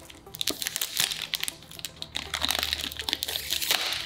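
Clear cellophane wrap being torn and peeled off a perfume box, crinkling in quick, irregular crackles that grow denser and louder from about halfway through.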